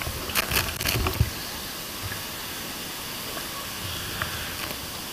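Waterfall pouring into a pool: a steady rushing hiss of falling water, with a few short splashes in the first second or so.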